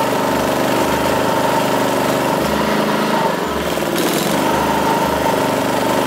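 WAKITA HPG2300is inverter generator's petrol engine running under load from a heat gun, with the heat gun's blower noise over it. The engine runs slightly unevenly, a light governor hunting that the owner thinks may come from low fuel.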